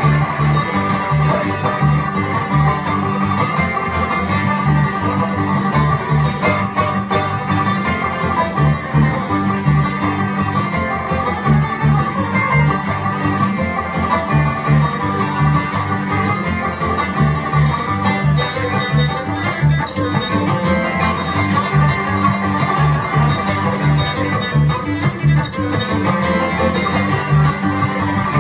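Bluegrass instrumental played on banjo and guitar, quick picking over a steady pulsing beat.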